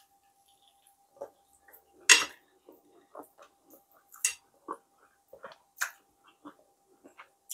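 Close-up eating sounds of fried tilapia: crunchy bites into the crisp fried fish, chewing and lip smacks, with the loudest crunch about two seconds in and smaller crackles as the flesh is picked from the bones.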